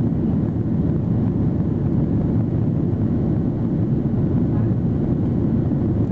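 Steady low rumble of a Boeing 737-800's CFM56-7B jet engines and rushing air, heard inside the passenger cabin.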